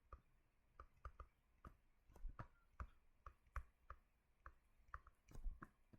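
Faint, irregular clicks and taps of a pen or stylus being written with, about two or three a second, over quiet room tone.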